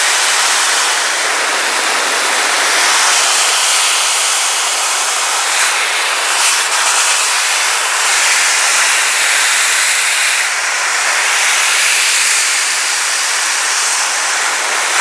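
Shelandy heated car and motorcycle blower dryer blowing air out of its hose nozzle onto a wet plastic running board: a steady, rushing hiss.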